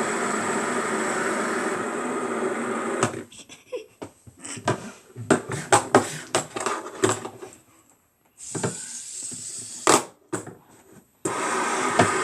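A steady whirring hum, broken from about three seconds in by a run of sharp clicks and taps of small objects being handled, with a brief drop to silence, before the hum returns near the end.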